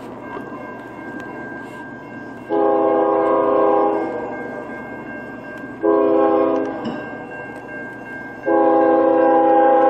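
HO-scale model diesel locomotive's sound-decoder horn blowing a long blast, a short one, then a long one held near the end, the grade-crossing signal. A steady engine drone from the model runs between the blasts.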